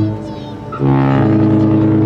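Cruise ship horn: a held blast breaks off at once, and after a gap of under a second a new long, steady blast starts, deep and made of several tones sounding together.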